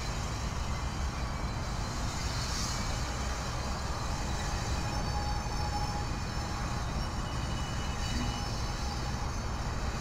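A train rolling past: a steady low rumble of railcars on the rails, with faint thin high tones above it.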